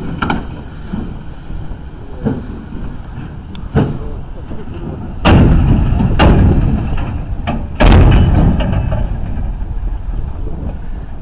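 Ural truck driving through deep water: a low rumbling run with a few short knocks, then two sudden, much louder surges of heavy low rumbling, about five and eight seconds in, that stay loud.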